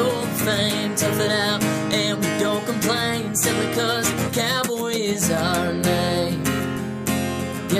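Background country music with guitar and a steady beat.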